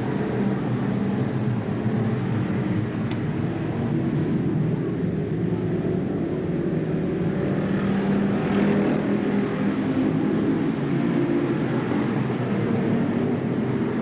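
A pack of stock cars racing around an oval track, their engines running together in a steady, continuous drone.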